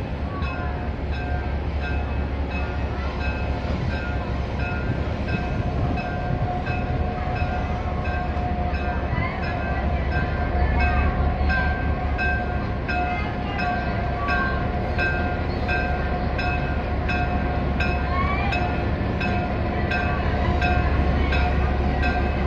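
Diesel locomotive's engine running steadily with a low rumble and a steady whine while it turns on a railway turntable.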